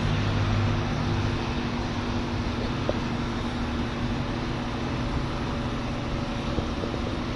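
A steady mechanical drone: an even rushing noise with a low, constant hum, as from a running machine or fan unit.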